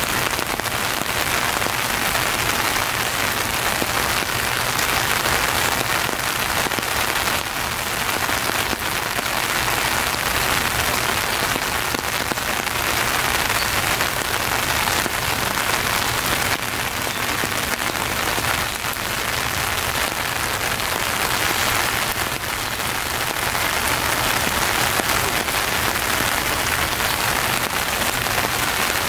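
Steady rain falling on the trees and surroundings, an even hiss with no bird calls standing out.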